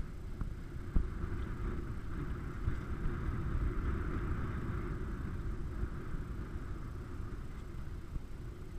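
A 4x4's engine running, heard as a steady, uneven low rumble with a hiss that swells and fades in the middle, and one sharp knock about a second in.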